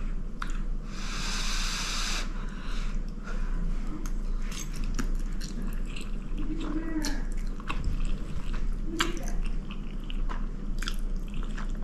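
A person eating spaghetti in Alfredo sauce: slurping up the noodles and chewing, with many small wet mouth clicks. There is a hissy slurp about a second in, and two short closed-mouth 'mm' hums of enjoyment near the middle.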